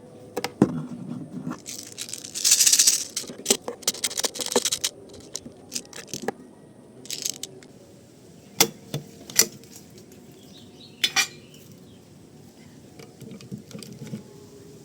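Metal clicks, clacks and knocks of a steel-and-wood LCT AKS-74N airsoft rifle being handled, with a scraping rush about two and a half seconds in and a short rattle near eleven seconds.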